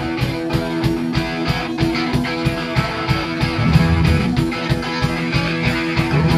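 Live rock band playing the instrumental opening of a punk song: electric guitars through Marshall amps over a drum kit keeping a steady beat.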